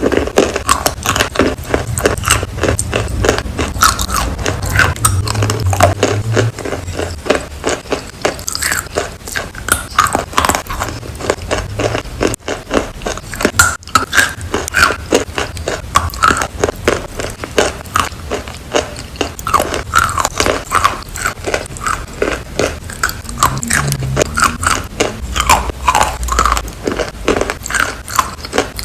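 Someone biting and chewing crunchy food in a dense, irregular run of wet crunches.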